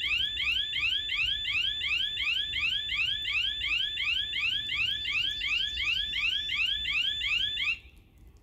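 Railway level-crossing warning signal sounding a repeating rising electronic chirp, about three a second, warning of a train at the crossing. It cuts off suddenly near the end.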